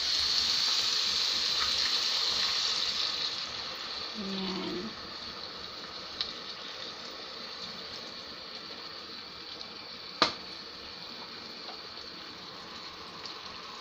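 Pan of fried tofu and minced pork sizzling as sauce is poured in: loud at first, then settling after about four seconds into a quieter, steady sizzle. A single sharp click about ten seconds in.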